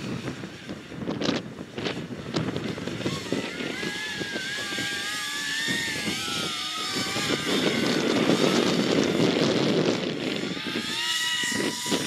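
Electric ducted fan whine of an FV-31 Cypher RC jet, wavering up and down in pitch, over heavy wind rumble on the microphone in gusty 15–20 mph wind. Near the end the fan whine rises and then holds at a steady higher pitch as it spools up.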